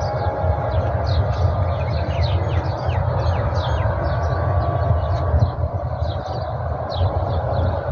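Many small birds chirping: short, high chirps that drop in pitch, several each second, over a steady low rumble.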